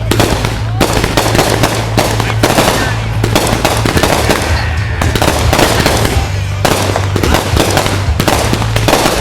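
Fireworks going off in quick, unbroken succession: dense cracks and bangs, with music and a steady bass line playing underneath.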